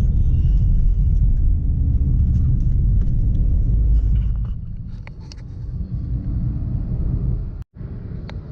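Road and wind rumble from a moving vehicle, heavy and low for the first four seconds, then easing off, with a brief dropout near the end.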